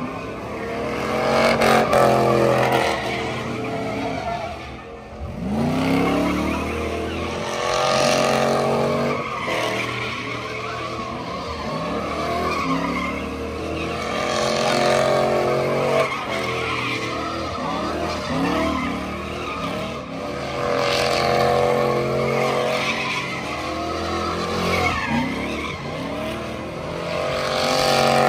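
Pickup truck engine revving hard in repeated surges, the pitch climbing and dropping about every six to seven seconds, over the steady hiss of spinning, squealing tires: a burnout.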